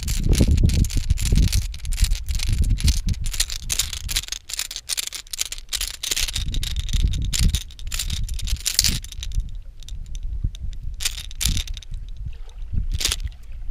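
Wind gusting on the microphone with a low rumble, over rapid rattling and clicking that thins out to a few sharp clicks after about nine seconds.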